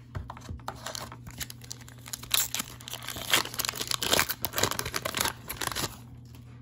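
Foil trading-card pack wrapper being torn open and crinkled by hand: a dense run of crackles that stops about six seconds in.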